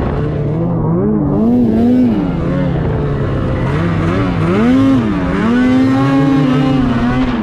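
Ski-Doo Freeride 850 two-stroke snowmobile engine revving up and down repeatedly as the sled ploughs through deep powder, then held at a steady high rev near the end.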